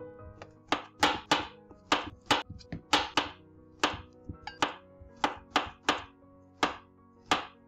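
Kitchen knife slicing a peeled banana into rounds on a cutting board: a sharp tap each time the blade meets the board, about two a second. Soft background music plays underneath.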